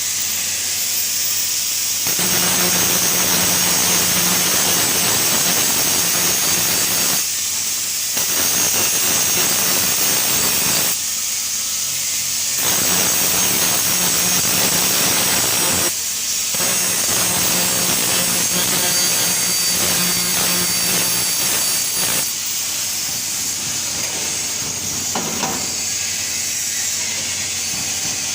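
TIG (GTAW) welding: a steady hissing arc, with a faint low hum in some stretches. The sound changes abruptly several times.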